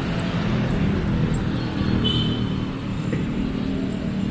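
City street traffic: motor vehicle engines running steadily close by, with a brief faint high tone about two seconds in.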